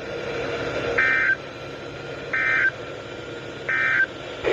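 Emergency Alert System end-of-message signal: three short bursts of SAME digital data tones, evenly spaced about 1.3 seconds apart, over faint radio background noise. It marks the end of the severe thunderstorm warning broadcast.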